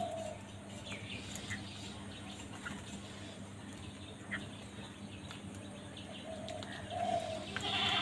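Short animal calls, with a louder, harsh call near the end, over a steady low hum.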